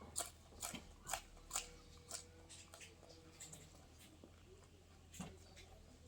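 Goat biting and chewing raw bitter gourd, a quick run of crisp crunches in the first two seconds, then sparser, with one more crunch near the end.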